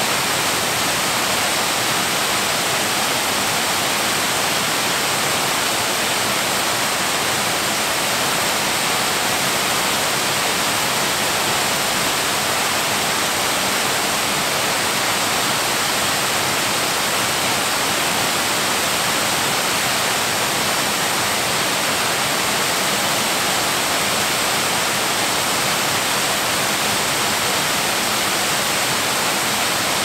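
Loud, steady rush of a 100-foot waterfall pouring over rock.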